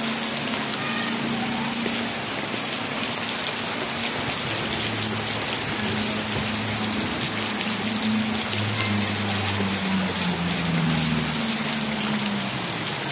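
Heavy tropical rain pouring steadily, an even hiss, with a faint low hum underneath.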